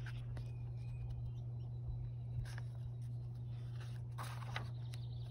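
Steady low hum with faint paper rustles of a picture-book page being turned, a few seconds in.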